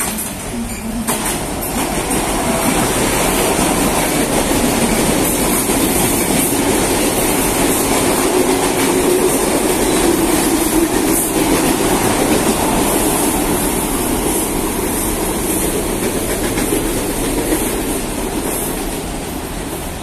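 CNR series 3000 electric multiple-unit commuter train passing close alongside a station platform, its wheels running on the rails. The sound builds over the first couple of seconds, holds steady, and eases off toward the end.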